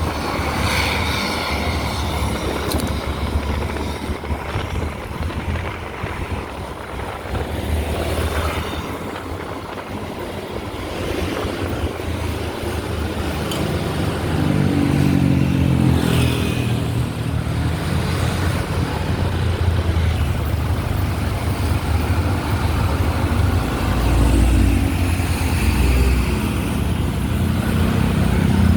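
Road traffic: motor vehicle engines running as they pass. A louder, deeper engine note builds about halfway through and stays strong to the end.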